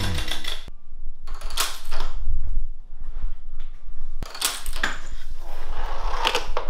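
Homemade chain reaction machine running: several separate bursts of clattering and rattling from household objects knocking and sliding, with lighter knocks in between.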